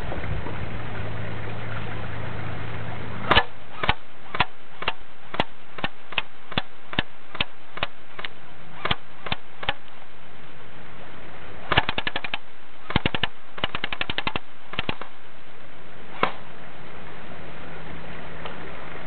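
JG M4 carbine airsoft electric gun firing: a string of single shots at about two a second, then a few short rapid bursts, and one last single shot near the end. A steady hiss runs underneath.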